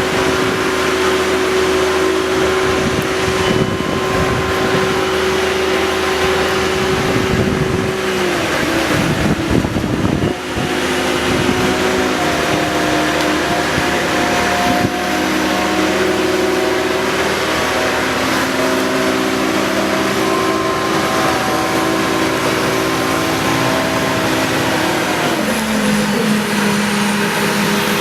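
Engine of heavy machinery clearing flood debris, running steadily under load; its pitch shifts about eight seconds in, with a rougher patch, and drops again near the end.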